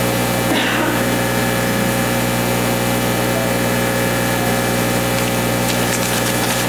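Steady electrical hum from a sound system: many fixed tones that hold at one level throughout. A few faint clicks come near the end.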